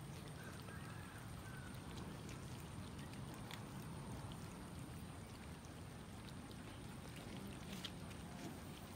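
Faint wet chewing and smacking of a group of cats eating raw minced chicken, with scattered small clicks over a steady low background noise.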